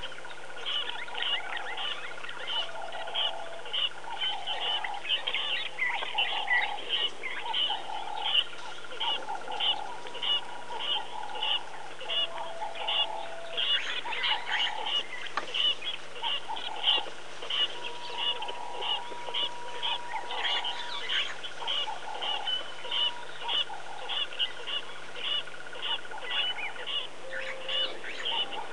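Wild animal calls: a rapid, steady chirping about two to three times a second, with irregular honking calls mixed in.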